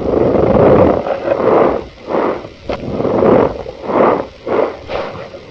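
Cornstarch powder squeezed again and again, each press giving a squeaky crunch; about seven presses, the first the longest.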